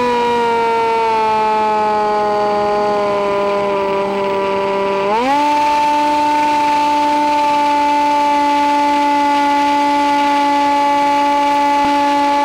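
Electric motor and propeller of a Nitroplanes Easy Hawk RC plane, heard from on board as a loud whine. The pitch sinks slowly for about five seconds while the throttle is eased back in a descent. It then rises quickly as the throttle is opened, and holds steady under power.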